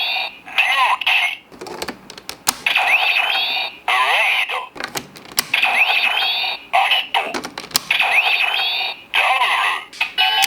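DX Kamen Rider Fourze Driver toy belt playing its electronic transformation sounds: the same short electronic jingle with quick pitch sweeps repeats several times, with the plastic clicks of the switches being flipped on between them.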